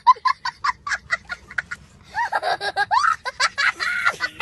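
Rapid, very high-pitched laughter, a quick string of short squeaky bursts for about two seconds, then high squeaky wavering sounds that bend up and down.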